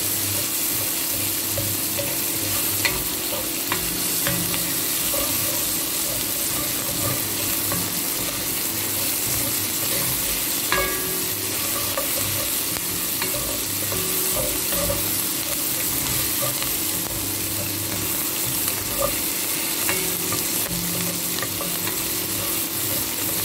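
Onions and garlic sizzling in hot oil in an enamelled cast-iron pot, sautéing until fragrant and lightly browned as the base of a stew. They are stirred and scraped with a wooden spoon, with a few light clicks of the spoon against the pot.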